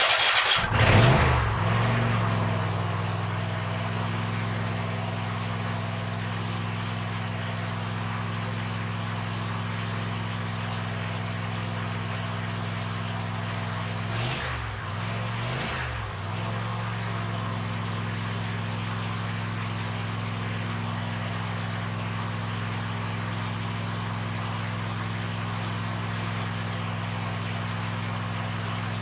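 Cub Cadet ZT1 zero-turn mower's engine catching and speeding up, then settling to a steady run. About halfway through its pitch dips briefly twice before it steadies again.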